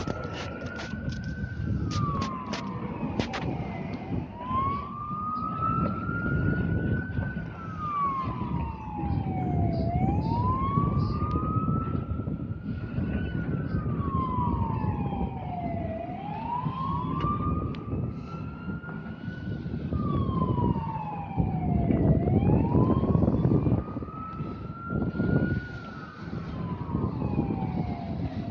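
Emergency siren wailing slowly, its pitch rising and falling about every six seconds, five times over, above a steady low rumble.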